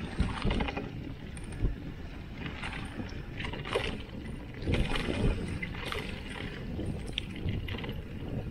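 Mountain bike rolling fast over a bumpy grass track: a steady low rumble of wind on the microphone, with the bike clattering and knocking as it jolts over bumps, loudest about a second and a half in and around five seconds.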